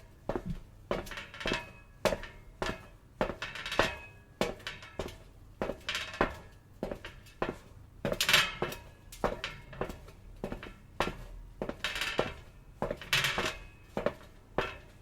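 Footsteps on a metal surface at a steady walking pace, about two steps a second, each step a clanking impact that rings briefly with a metallic tone; one step about eight seconds in is the loudest.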